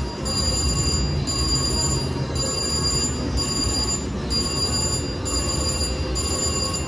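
VGT slot machine's electronic win sound while credits count up: a bright, ringing chime pattern repeating about once a second, over a steady low din of casino background noise.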